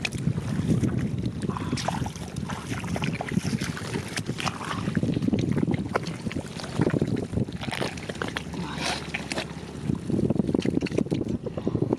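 Muddy water sloshing and splashing, with irregular swells and many small clicks and knocks, as fish are worked through a drained rice-field mud pool.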